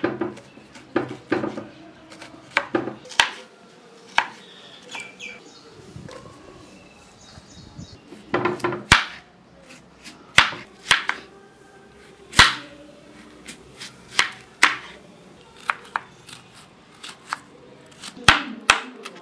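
Kitchen knife cutting raw beetroot on a wooden chopping board: irregular knocks of the blade hitting the board, in quick clusters with short pauses between.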